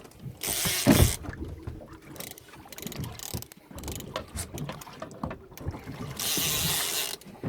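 Fishing reel being wound against a hooked mahi-mahi, its gears clicking and rattling with small knocks. Two bursts of hiss come about half a second in and again near the end.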